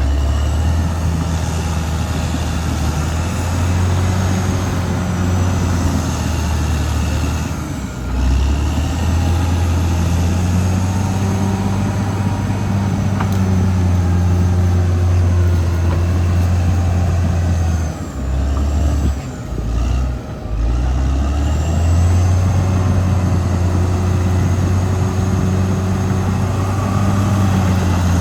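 Caterpillar D6R XL bulldozer's diesel engine running under work, a steady low drone with fainter higher whines that rise and fall. The drone briefly dips about eight seconds in, and again a few times around two-thirds of the way through.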